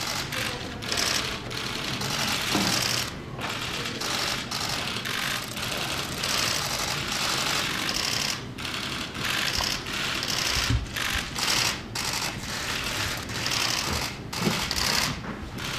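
Many press photographers' camera shutters firing at once, a rapid, overlapping clatter of clicks that eases off briefly a few times.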